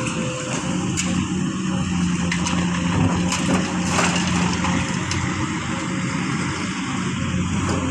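Heavy construction machinery's diesel engine running steadily, with scattered crunching and cracking noises over it.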